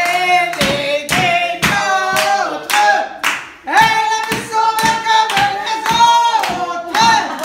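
Singing with hands clapping along in time, about two or three claps a second, with a brief break a little past halfway.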